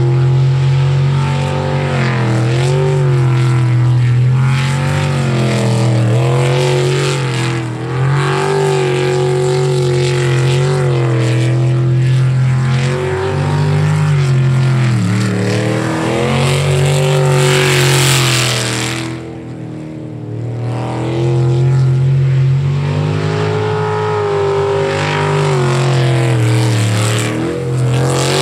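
Jet sprint boat's engine running hard, its pitch rising and falling over and over as it works through the course. About 18 seconds in a loud rushing hiss swells up, then the engine drops off briefly before picking back up.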